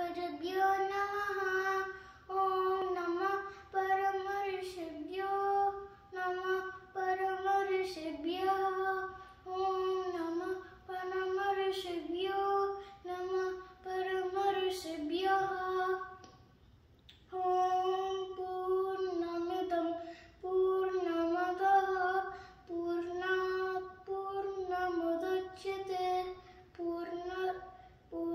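A young boy chanting Sanskrit slokas in a sing-song recitation, phrase after phrase on a nearly level pitch that dips at the end of each line, with short breaths between lines and one longer pause about sixteen seconds in.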